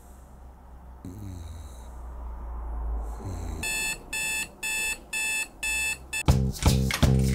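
A sleeper snoring softly, then an electronic alarm clock beeping five times, about two beeps a second. Loud music with a strong beat starts about a second before the end.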